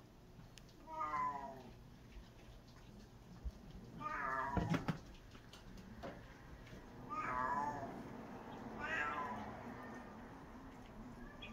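Domestic cat meowing four times, a few seconds apart, with a short knock about halfway through.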